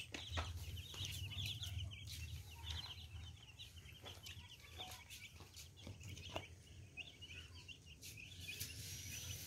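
Baby chicks peeping: a constant stream of many short, high chirps overlapping one another.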